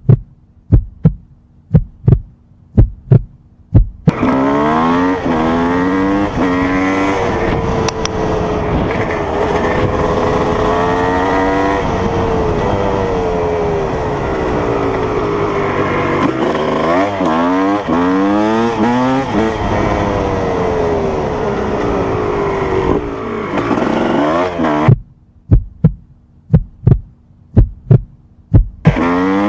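Dirt bike engine running hard, its pitch climbing and dropping again and again as it revs up through the gears and backs off. About the first four seconds and again near the end hold a string of sharp, loud pops with quiet gaps between them instead of a steady engine note.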